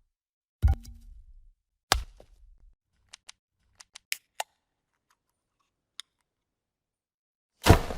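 Video-editing transition sound effects: two sharp hits with a low tail in the first two seconds, a scatter of small quick clicks around three to four and a half seconds in, a single tick about six seconds in, and a louder, longer hit near the end.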